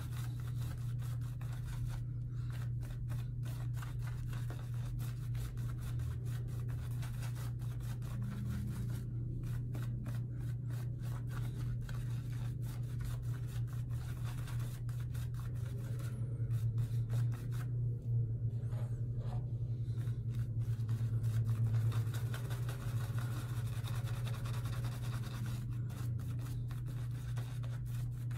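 Boar-bristle shaving brush (Semogue 2000) scrubbing lather onto a stubbled face in quick, repeated scratchy strokes, over a steady low hum.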